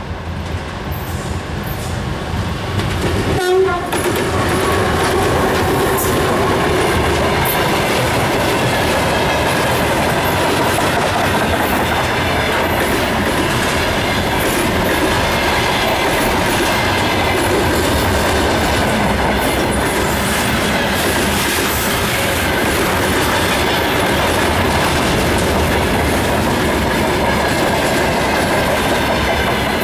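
A 2TE10M twin-section diesel-electric locomotive, with two-stroke diesel engines, passes close by, growing louder over the first four seconds. A long freight train of container flatcars and gondola wagons then rolls past steadily, its wheels clattering over the rail joints with some high ringing tones.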